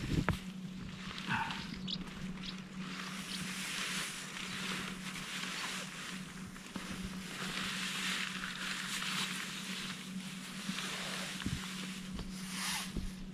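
Tent fabric rustling and rubbing in uneven swells as the tent is handled during pitching, over a steady low hum.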